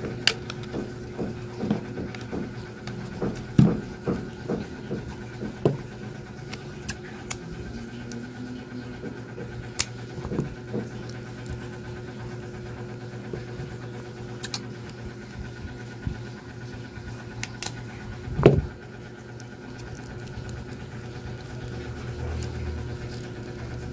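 Scattered light clicks and taps of hands handling a small digital pocket scale and AAA batteries while fitting the batteries, with one louder knock about three-quarters of the way through. A steady low hum runs underneath.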